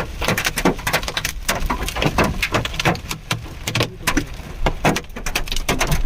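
Hailstones striking a hard surface: a dense, irregular patter of sharp knocks, several a second.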